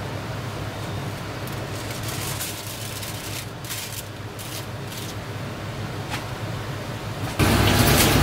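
Steady kitchen background noise with a low hum, with light crinkling as a sheet of aluminium foil is pressed down over a simmering pot in the middle. About seven seconds in, the noise jumps suddenly to a louder, denser steady hiss.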